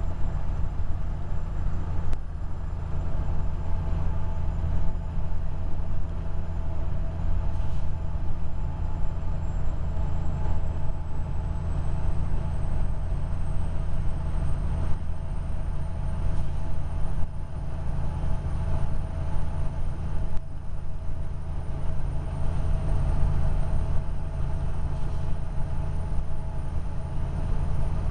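Semi-trailer truck's diesel engine and road noise heard inside the moving cab: a steady low drone with a thin high whine over it.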